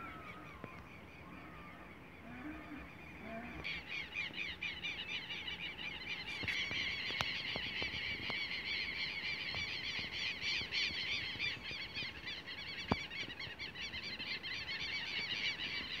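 A dense outdoor chorus of animal calls: rapid, repeated high chirps that start about four seconds in and grow louder, after a few softer gliding calls. A few sharp clicks stand out over it.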